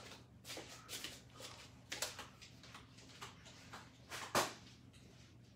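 Faint scattered clicks and knocks over a low steady hum, with one sharper knock about four seconds in.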